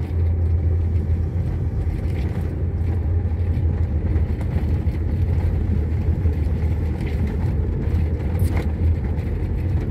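A truck's engine and its tyres on a gravel road, heard from inside the cab while driving: a steady, even low drone with rumbling road noise over it.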